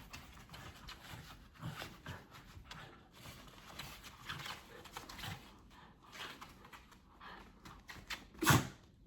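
A dog and a cat roughhousing: irregular scuffling and light knocks of play-fighting, with one louder sharp sound near the end.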